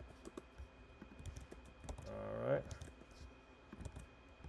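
Scattered light clicks and taps of a computer keyboard, coming irregularly.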